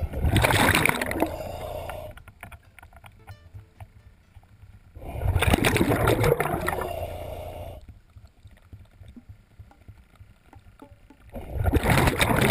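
Diver breathing through a regulator underwater: exhaled air bubbles rush out past the microphone in three long bursts about five to six seconds apart, with faint clicks in the quieter stretches between breaths.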